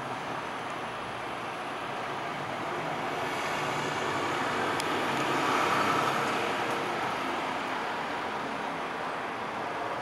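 Steady city traffic noise, with a passing vehicle swelling up and fading away around the middle.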